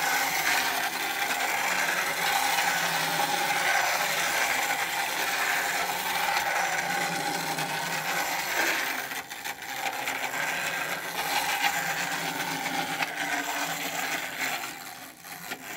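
Pull-back Thomas the Tank Engine toy train running around a plastic track: a steady mechanical whir from its wound-up pull-back motor and wheels. It starts abruptly as the train is let go and eases off near the end.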